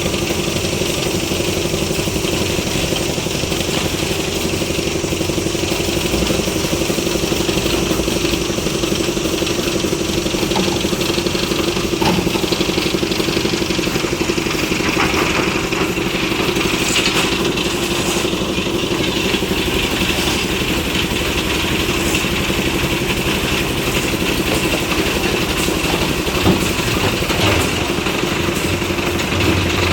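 Engine of a concrete lift machine running steadily at an even pitch.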